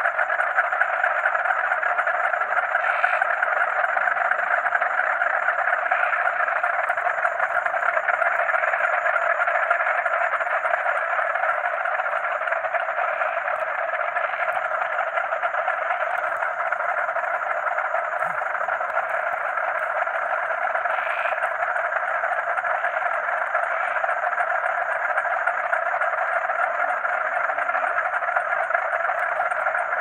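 A dense chorus of frogs calling continuously, overlapping into a steady wall of sound, with a faint high steady trill of crickets behind it.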